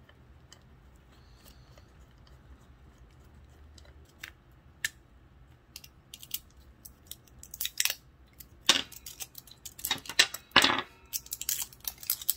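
Small plastic clicks and clacks of AA batteries being handled and fitted into a radio transceiver's plastic battery holder. The clicks are sparse at first and busier in the second half, with a few louder knocks.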